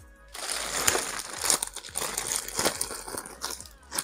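Packaging wrapper crinkling and rustling as a football boot is handled and pulled out of it, with many sharp crackles starting about a third of a second in.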